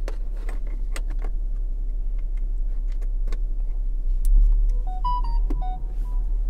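Scattered handling clicks as a USB-A cable plug is pushed into the car's dashboard USB port, over a steady low hum in the car cabin. About five seconds in, a short electronic jingle of several quick pitched beeps plays.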